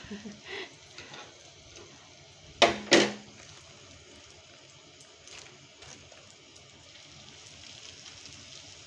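Lumpia frying in shallow oil in a pan, a faint steady sizzle. Two sharp knocks close together about two and a half to three seconds in stand out above it.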